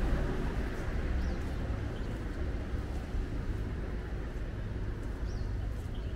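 City street ambience: a steady low rumble of traffic, with a couple of faint, short, high chirps.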